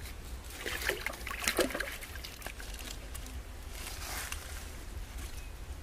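Wet rustling and squelching of leaves as hands handle and rub live eels in a pile of fresh leaves, in irregular bursts about a second in and again around four seconds in.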